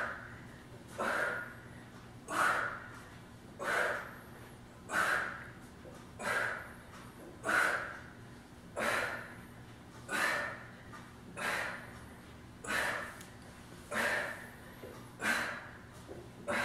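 A woman's forceful breaths out, one short hissing exhale about every 1.3 seconds, in time with each crunch rep of a bicycle crunch exercise.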